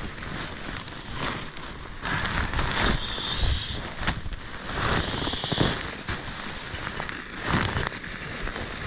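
Sleeping mat being handled and packed: irregular crinkling and rustling of its fabric, with two short hissy stretches about three and five seconds in.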